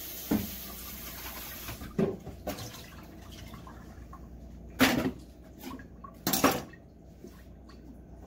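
Kitchen tap water running for about the first two seconds, then dishes and a plastic pitcher knocking and clattering as they are handled at the dish rack, with two louder clatters in the second half.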